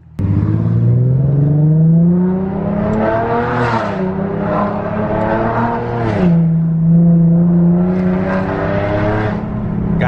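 Infiniti G37's 3.7-litre V6 engine heard from inside the cabin, revving under acceleration in manual mode. The pitch rises through the first three seconds, drops sharply about six seconds in as the revs fall, then climbs slowly again.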